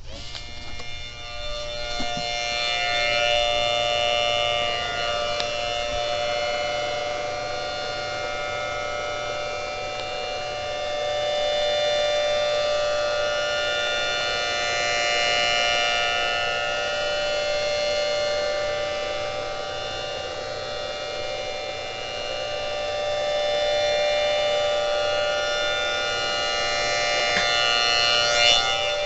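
Homemade 3D-printed miniature Thunderbolt-style tornado siren, its blower and chopper winding up in pitch over the first couple of seconds, then holding a steady two-note wail. The loudness swells and fades slowly as the rotator turns the horn during a rotation test.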